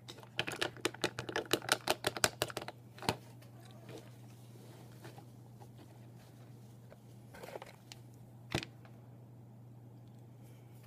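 Handling noise: a quick run of small hard clicks and taps for about the first three seconds, then a few single knocks spaced apart, over a steady low hum.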